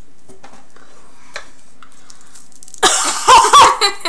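A boy coughing in a few loud bursts, starting near the end.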